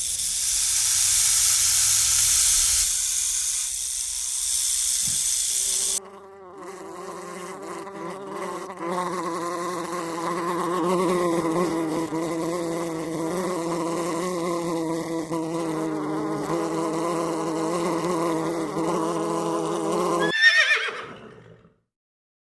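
A loud hiss for about six seconds, then the steady, slightly wavering buzz of a large bee or wasp in flight for about fourteen seconds, which cuts off near the end.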